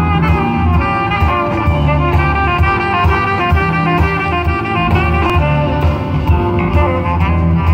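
A small jazz band playing a song's instrumental introduction: an upright bass holds low notes and the drum kit keeps a steady beat, about two strokes a second, while a lead melody line carries the tune.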